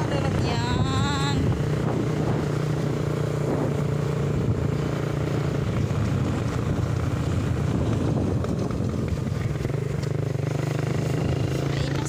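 Motorcycle engine running steadily while the bike rides along at an even speed.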